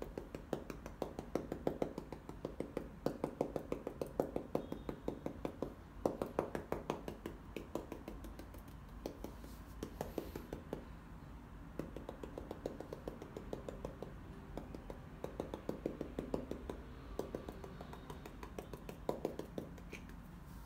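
Paintbrush dabbing acrylic paint onto a canvas to stipple foliage: quick runs of soft taps, several a second, broken by short pauses.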